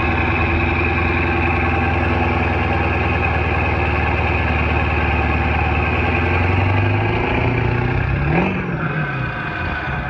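Ford 7.3 L Power Stroke V8 turbo-diesel running at a steady idle through twin vertical exhaust stacks. The pitch briefly rises and falls about eight and a half seconds in.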